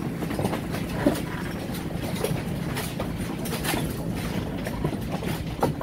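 Small farm tractor's engine running steadily as it tows a line of passenger wagons, with scattered knocks and rattles from the wagons on the dirt track.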